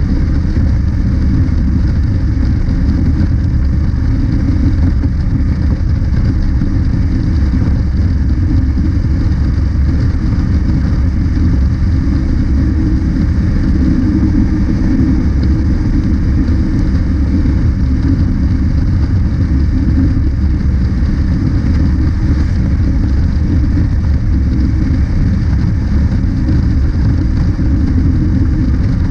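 Honda CB500X's 471 cc parallel-twin engine running steadily at a highway cruise of about 100 km/h, under a heavy, unbroken wind rush over the microphone.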